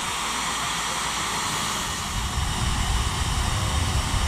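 Hand-held hair dryer running steadily on its fan, blowing air to dry water off a snow globe's base and stopper.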